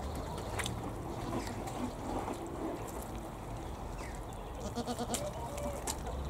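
A goat bleats once, a short wavering call about five seconds in.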